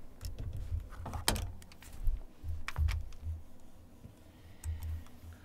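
Scattered sharp clicks from working a computer mouse and keyboard, a few strong ones about a second in and near the middle, over low dull thumps of handling at the desk.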